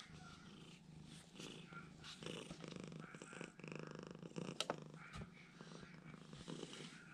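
Domestic cat purring faintly, close to the microphone. A couple of sharp clicks are heard a little past halfway.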